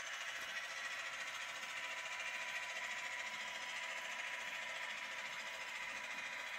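Model railway freight train running on the track: a small electric locomotive motor and the wheels of a long rake of wagons rolling over the rails, giving a steady running noise with a faint whine.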